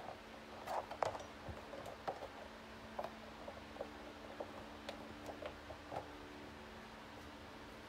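Handling noise: light knocks and clicks of objects being lifted and moved, a cluster about a second in, then scattered taps, over a faint steady hum.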